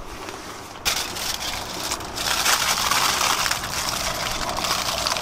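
Aluminium foil crinkling and crackling as it is handled and pressed down by hand over the rim of a metal mug, starting suddenly about a second in with a brief lull near two seconds.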